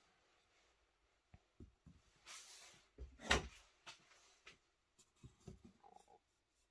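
Handling noise: a few soft knocks and rustles as folding knives, among them a titanium-handled WESN Allman, are set down and shifted on a cloth mat. The loudest knock comes a little over three seconds in, with a cluster of small taps near the end.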